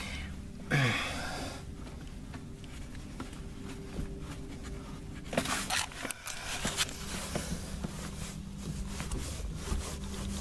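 Scattered rubbing, scraping and light clicks of close-up handling, over a steady low hum. A short sound falling in pitch comes about a second in, and a louder scraping burst comes about halfway.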